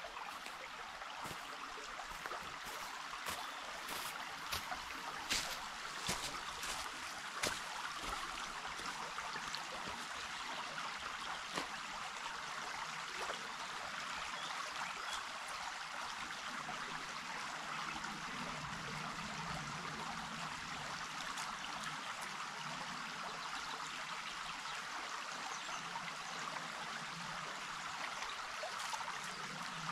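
Running water, a steady rushing like a small stream, with a few short clicks or knocks in the first several seconds.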